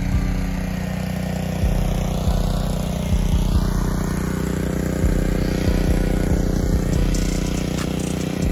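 Gas-engine 2.5 GPM pressure washer running steadily under load while its wand sprays, with a low, uneven thudding from the engine.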